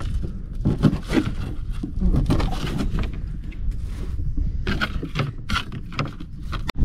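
Irregular knocks, clicks and scrapes of things being handled in a small fishing boat, over a steady low rumble.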